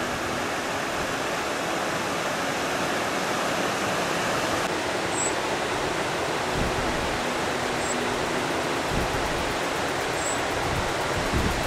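Rushing mountain river, a steady noise of running water, with three faint high chirps spaced a couple of seconds apart.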